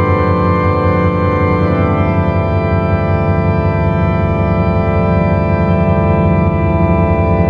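Sustained drone music: one dense chord of many steady tones held throughout, with a fast flutter in the low notes. Some of the higher notes fade out about two seconds in.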